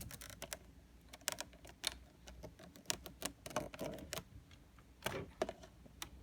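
Plastic wiring-harness plugs and cables being handled and pushed into their sockets on a pachislot machine: a scatter of light, irregular clicks and rattles.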